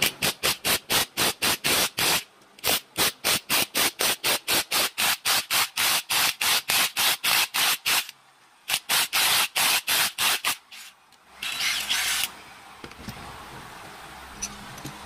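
Bearing being drawn off an alternator rotor shaft with a two-jaw hand puller: fast, even rasping strokes, about four a second, in three runs broken by short pauses, then a single longer, harsher scrape of about a second as the bearing comes free.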